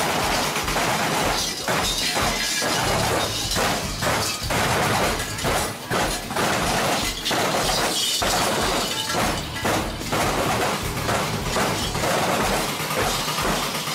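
Dense metallic clanging and rattling from Krampus costumes and their chained boards, over loud music with a steady bass beat at about two beats a second.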